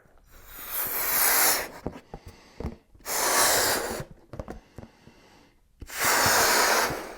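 A person blowing hard into a rubber balloon to inflate it, three long forceful breaths of about a second each with short pauses between.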